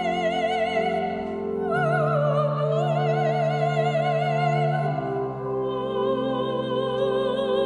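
Soprano singing held notes in a classical, operatic style with wide vibrato, accompanied by sustained organ chords played on a two-manual organ; the chords change about five seconds in.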